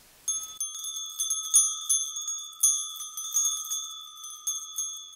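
Hand-held brass Sanctus bells shaken by hand, starting about a quarter second in with many quick, irregular strikes over a steady bright ringing. The strikes thin out near the end and the ringing fades away.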